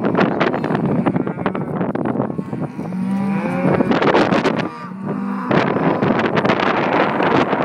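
Cattle mooing, two held calls about three and five seconds in, over wind buffeting the microphone.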